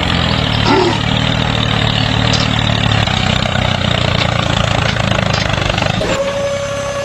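A small engine running steadily. About six seconds in it gives way to a steady, high-pitched motor whine.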